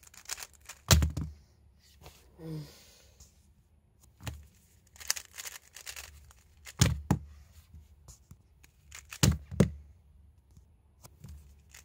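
Plastic 3x3 speed cube being turned by hand: irregular bursts of clicking, clacking turns, with a few louder clacks carrying a dull thump against the mat.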